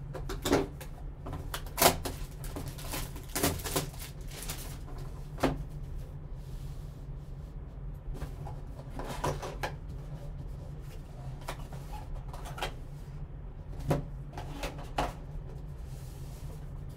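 Gloved hands handling and opening a cardboard trading-card box: scattered sharp clicks, taps and rustles of cardboard and packaging, over a steady low hum.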